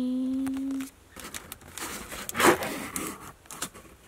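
A voice holding a long drawn-out 'goood' for about the first second. Then crinkly material rustles and crackles as it is handled, with scattered clicks and one loud crinkle about two and a half seconds in.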